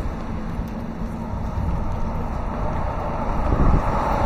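Road traffic on the bridge: a steady low rumble, with a car passing close by and growing louder near the end.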